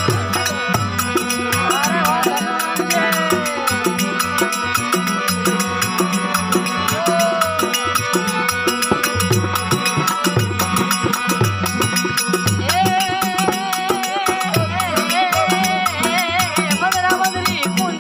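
Rajasthani folk devotional music (a prabhati bhajan): a steady, quick percussion beat under a wavering melodic line and a repeating bass pattern.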